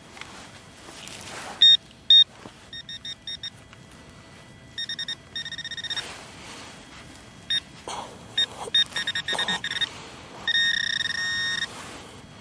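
Minelab CTX 3030 metal detector giving target tones over a buried metal object: runs of short beeps at one steady pitch, with a longer held tone near the end.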